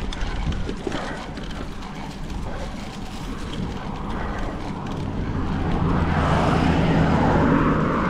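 Wind noise on the microphone while riding a bicycle, then a pickup truck towing a trailer comes up from behind and passes: a low engine drone and tyre noise building over the second half and loudest near the end.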